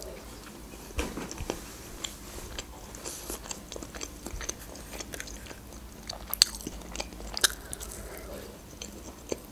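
Close-miked chewing of soft food: quiet wet mouth clicks and smacks, with a few sharper clicks about a second in and again around six and seven seconds.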